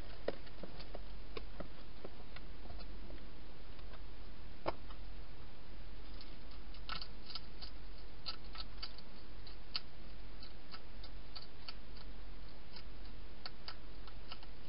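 A wild hedgehog feeding: irregular sharp clicks and crunches of it chewing dry food and moving about inside a clear plastic feeding box. The clicks come more thickly from about halfway through, over a steady low hum.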